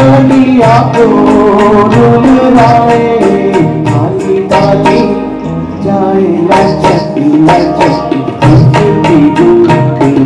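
Live band playing a Hindi film song: a hand drum keeps a steady beat under melody instruments, with a man singing over it. The drumming drops out briefly about halfway through.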